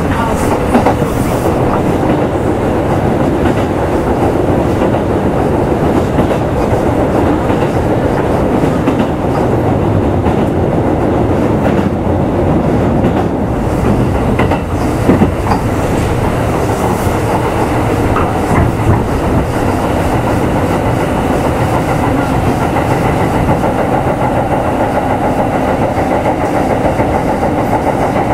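Kintetsu 2800 series electric train running steadily, heard aboard motor car Mo 2852: a continuous rumble of wheels on rail with clickety-clack over rail joints and occasional short clicks.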